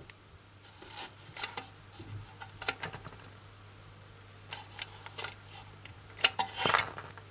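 Handling noise as a tube of silicone grease is worked onto the metal contacts of a plastic battery box: scattered small clicks and rubs, a few a second apart, over a faint steady low hum.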